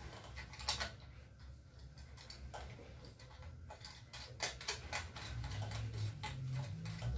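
Irregular small clicks and ticks of a flux-core wire spool and its plastic fittings being handled and seated in the spool compartment of a Redbo MIG-120 mini welder, with a sharp click just under a second in and a busy run of clicks around the middle.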